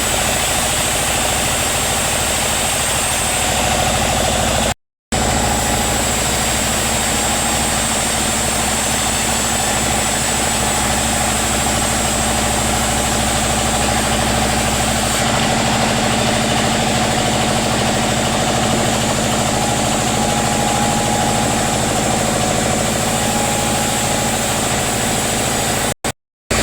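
Sawmill machinery running steadily, with an engine-like hum. The sound drops out completely for a moment about five seconds in and again near the end.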